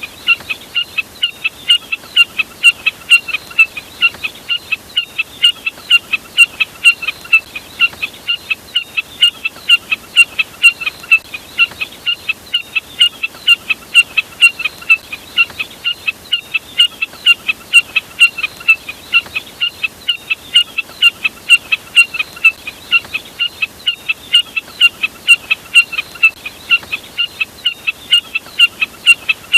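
Jack snipe calling: a fast, unbroken series of short, sharp notes, about three to four a second.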